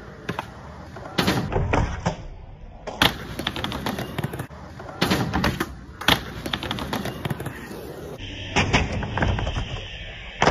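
Skateboard popping flip tricks and landing: several sharp wooden cracks of the tail snapping and the board slapping down on concrete, between them the rumble of hard urethane wheels rolling on the concrete.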